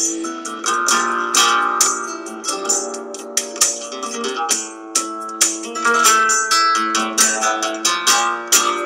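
Background music of plucked, strummed strings: a steady run of quick chords and notes.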